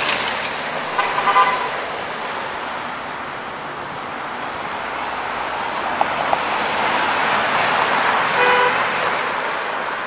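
Car horns tooting briefly, once about a second in and again near the end, over the steady noise of cars passing on the road.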